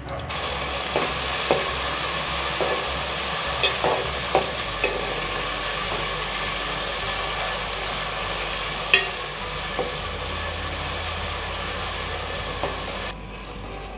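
Chopped tomatoes sizzling in hot oil in a pan with fried onions, green chillies and curry leaves, stirred with a spoon that clicks and knocks against the pan now and then. The sizzling cuts off abruptly near the end.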